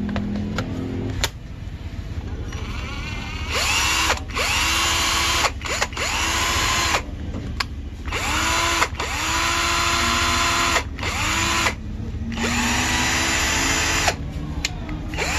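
DeWalt cordless drill, newly fitted with an RS-550 brushed motor, run in a string of short trigger pulls from a few seconds in. Each burst whines up to speed, holds briefly and cuts off. This is the test run after the smoking, burnt-out motor was replaced.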